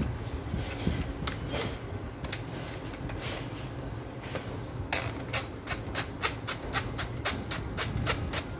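A few scattered knocks from the Makita HP457 drill being handled, then from about five seconds in a steady run of sharp clicks, about four a second, as the keyless chuck is twisted by hand against its ratchet.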